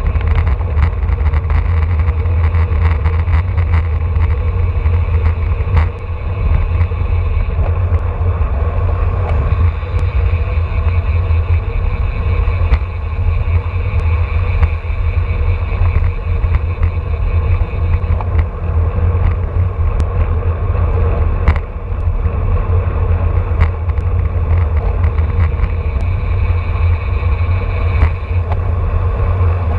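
Heavy wind rumble on the microphone of a road bike riding in a racing pack at about 25 mph, mixed with the hiss of tyres on the road. A few sharp clicks stand out now and then.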